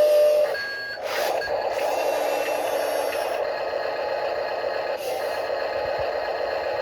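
Small electric motors and gears of a 1/14-scale RC construction machine whirring steadily as it works, with a sharp click about a second in and another near five seconds.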